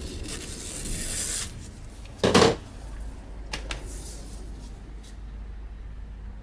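Hands working on a hand-press impulse bag sealer: a rubbing, rustling sound, then one sharp knock about two seconds in, followed by a couple of light clicks.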